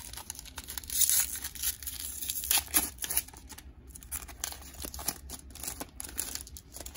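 Foil wrapper of a Panini Prestige football card pack being torn open and crinkled by hand, with the sharpest rips about one second and two and a half seconds in.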